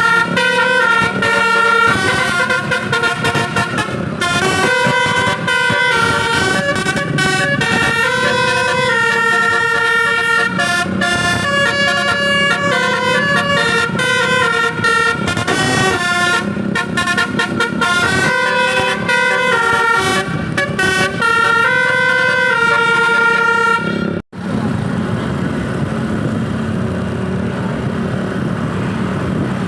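A bus's basuri "telolet" musical horn playing a melody: several horn tones stepping from note to note, one with a fast warble. It cuts off suddenly about 24 seconds in, leaving steady road and engine noise.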